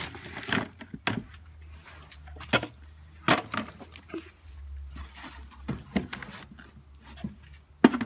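Plastic buckets knocking and scraping as they are handled and stacked, with straw and compost tipped from one bucket into another: a string of sharp knocks and clatters.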